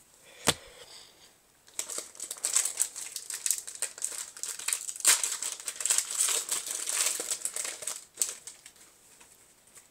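Foil wrapper of a Yu-Gi-Oh! booster pack crinkling as it is opened by hand, a dense run of crackles that dies away near the end. One sharp knock about half a second in.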